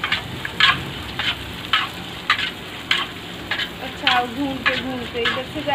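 Golgappa puris deep-frying in hot oil in a kadhai, sizzling steadily, with a swish from the perforated skimmer pushing and turning them a little under twice a second.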